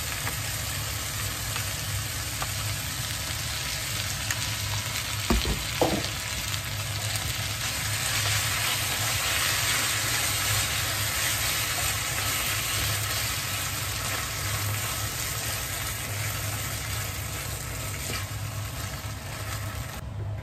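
Food sizzling steadily in a hot frying pan, with a couple of short knocks about five seconds in; the sizzle drops away near the end.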